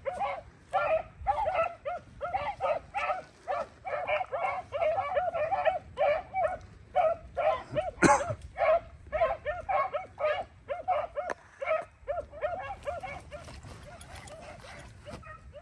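Rabbit hounds baying on the trail of a running rabbit: a rapid, continuous chorus of short, overlapping cries that thins out near the end, with one sharper, louder sound about eight seconds in.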